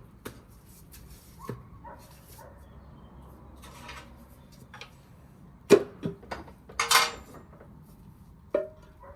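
Metal hand tools and engine parts clinking and clattering while work goes on at an old Land Rover engine, with scattered sharp clinks, a few of which ring briefly, and the loudest clanks about six to seven seconds in.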